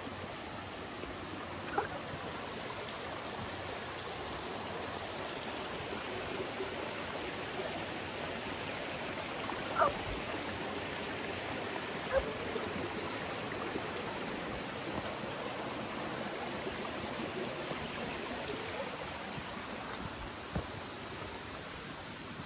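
Shallow stream of a small waterfall rushing steadily over rocks, with a few short knocks, the loudest about ten seconds in.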